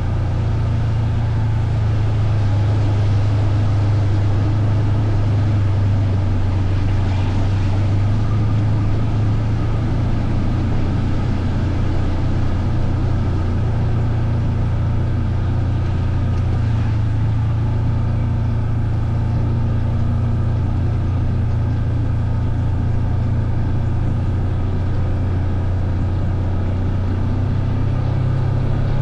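Engine of a ridden vehicle running at a steady, even speed: a constant low drone.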